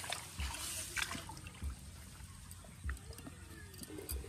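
Canal water trickling and dripping, with small clicks and a soft low thump about every second and a quarter.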